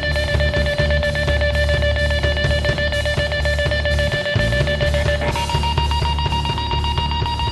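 Live grunge-noise rock band: a drum kit played hard, heavy bass and distorted electric guitar, with a held high tone over the top that jumps up in pitch about five seconds in.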